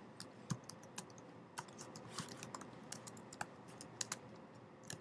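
Typing on a computer keyboard: a faint, irregular run of quick key clicks as a short phrase is typed.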